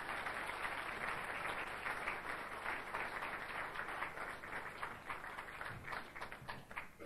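Audience applauding, many hands clapping together; near the end the clapping thins to a few scattered claps and stops.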